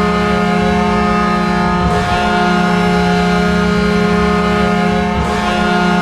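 Detroit Red Wings' goal horn: a deep, loud horn blast held steadily, with two brief breaks, about two seconds in and just past five seconds.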